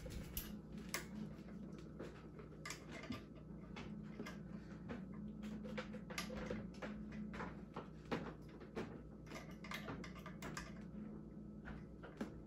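Pliers and hand tools clicking and scraping on the metal front fork of a Ninebot Max electric scooter as a nut is turned: light, irregular clicks, with a faint steady hum underneath.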